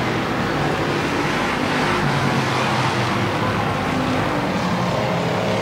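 A field of race cars running laps together: a steady, loud drone of several engines at speed, their notes overlapping.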